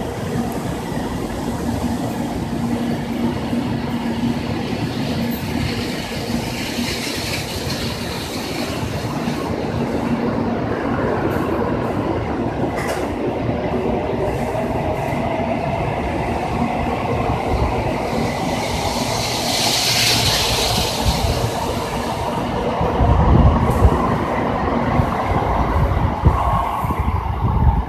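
N700A Shinkansen train pulling out of the platform and accelerating. The traction motors' whine climbs slowly in pitch over the rush and clatter of the passing cars, and it grows loudest near the end as the last cars go by.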